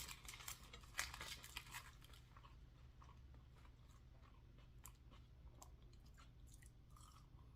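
Faint close-up chewing of fast food, with soft crunches and mouth clicks, busiest in the first couple of seconds and sparser after.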